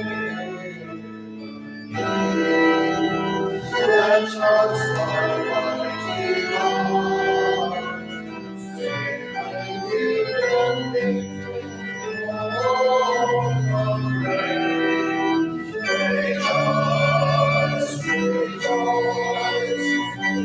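Organ playing slow sustained chords, softer for the first two seconds and then fuller.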